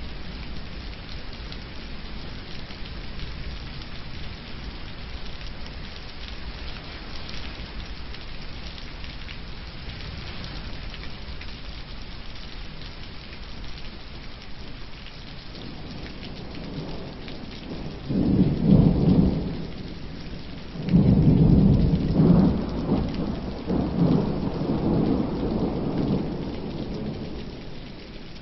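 Steady hiss of rain, then loud low rumbles of thunder: one short roll about 18 seconds in and a longer, uneven roll a few seconds later.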